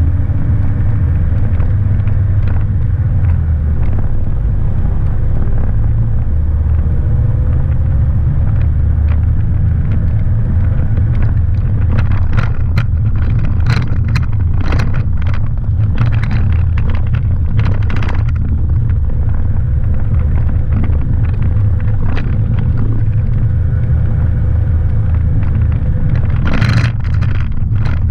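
A 4x4 driving with a steady low rumble of engine and tyres. From about halfway on, sharp clicks and knocks come in clusters as it runs over the rough gravel track.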